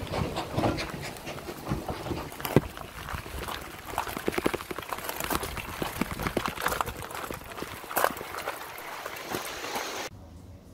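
Irregular taps and knocks of raindrops striking the camera and microphone over rain noise, with a low rumble in the first couple of seconds; the sound cuts off suddenly near the end.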